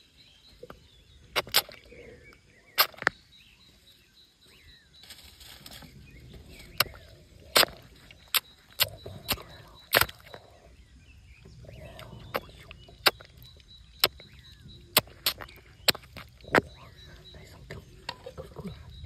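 A string of sharp, irregular wet clicks and slaps as an Asian swamp eel is hooked and hauled thrashing out of a muddy, water-filled hole, with a faint steady high whine underneath.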